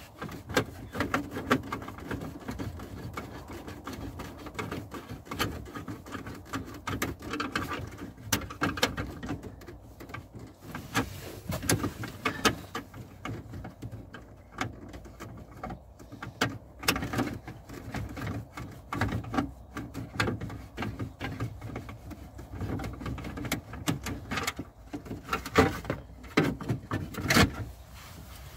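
A bolt being undone from the plastic trim under a car's steering column: irregular clicking and rattling of a hand tool on the fastener and the trim panel.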